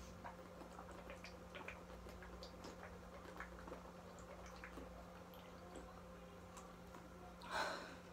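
Faint, irregular small clicks and wet ticks from a man sitting with his just-finished soda, with one short breathy puff about seven and a half seconds in.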